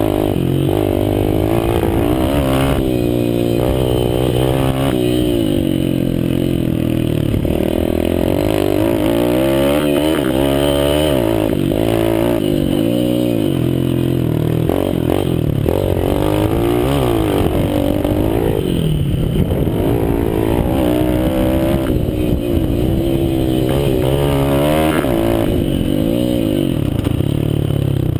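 Mini motocross bike engine revving up and down again and again as it is ridden along a dirt track, the pitch climbing and dropping every second or two, heard from the rider's helmet camera.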